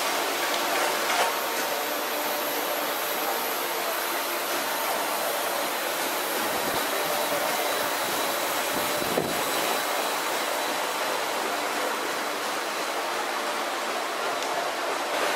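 Steady rushing workshop background noise, with a faint high steady whine and a single sharp click about nine seconds in.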